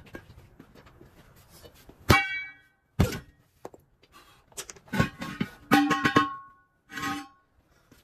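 Steel truck wheel rims being knocked and handled, giving five or six heavy metal clangs that ring on briefly after each strike, with a cluster of them a little after the midpoint.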